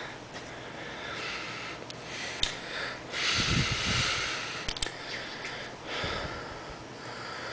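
A person breathing and sniffing close to the microphone, with a longer, louder breath about three seconds in and a few small clicks.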